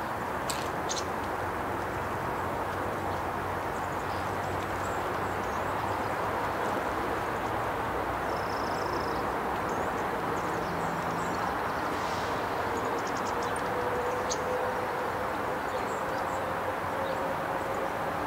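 Steady outdoor rumble, like distant traffic or wind, with a faint tone slowly rising in pitch in the second half. A few short, faint, high chirps of small birds are scattered through it.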